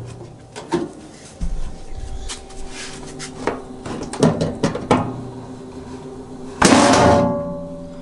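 Knocks and rattles of a Lennox Elite gas furnace's sheet-metal access cover being handled, with a loud metallic clang that rings briefly near the end. Under it runs a steady low hum from the furnace blower, which is on a low setting.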